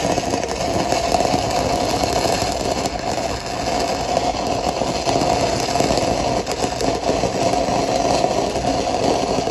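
Stick-welding arc of a 3/32-inch 6010 electrode at about 70 amps, crackling steadily as it runs a root pass in the bevel gap of a steel pipe joint.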